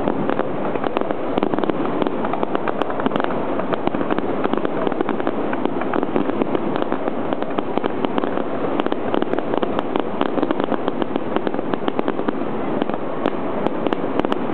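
Aerial firework shells bursting overhead: a dense, continuous crackling with rapid sharp pops and no single boom standing out.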